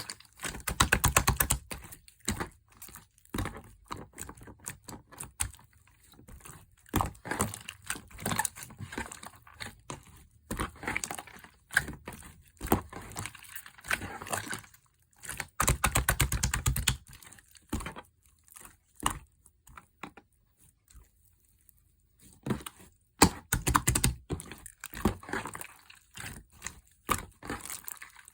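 Small utensils and containers tapping, clicking and clinking while a small cake is made, with two stretches of rapid clicking, about a second in and again about sixteen seconds in.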